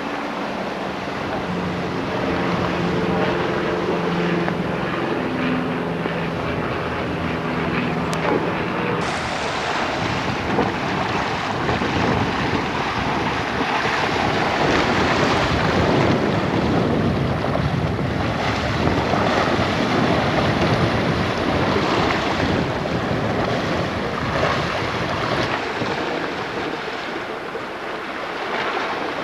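Water rushing along the hull of a sailing yacht under way, with wind buffeting the microphone; the rush grows fuller and louder about nine seconds in. A few steady humming tones sound under it during the first several seconds.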